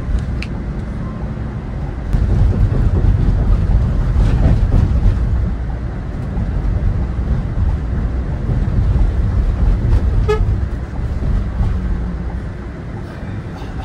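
Scania K400IB touring bus running on the road: a steady heavy low engine and road rumble that grows louder about two seconds in. A short horn toot sounds about ten seconds in.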